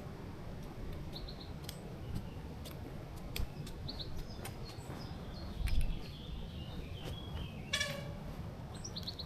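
Small birds chirping in short calls several times, over a steady low rumble, with scattered clicks and a dull thump a little past the middle.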